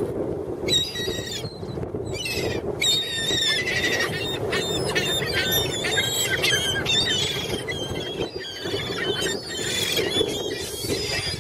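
A flock of seagulls calling over each other: many short, high, squealing cries overlapping almost without pause, over a steady low rushing noise.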